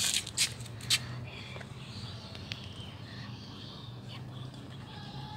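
Leaves brushing and rustling against the handheld phone three times in the first second, then faint high chirping, like small birds, over a steady low hum.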